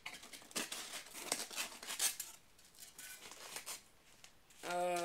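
Packing materials rustling and crinkling as they are handled and pulled from a cardboard shipping box, in many quick, irregular clicks and scrapes. A voice starts near the end.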